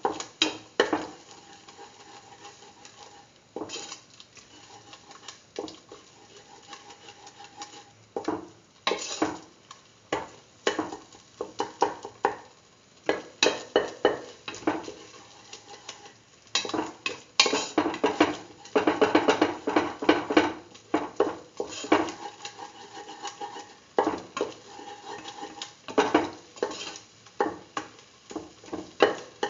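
Spatula scraping and knocking against a metal pan while scrambling an egg into a tomato and onion mixture: irregular strokes, with a quick flurry of them about two-thirds of the way through.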